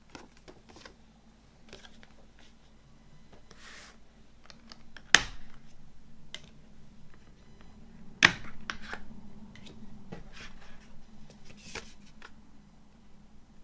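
Hands handling a movie box set's packaging: scattered clicks, taps and a brief rustle, with two sharp plastic-like clacks about five and eight seconds in.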